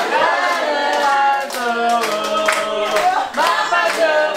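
A group of people singing together with hands clapping along.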